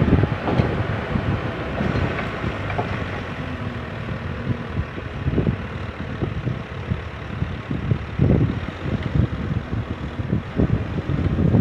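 JCB 3CX backhoe loader's diesel engine running steadily, with wind gusting on the microphone in irregular low buffets.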